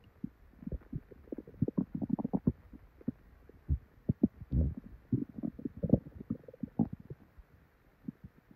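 Human stomach and bowel gurgling, heard close up: many short, irregular bubbling gurgles in quick clusters, with a brief lull near the end. These are digestion sounds after a meal, which the owner describes as diarrhea bubbling inside her.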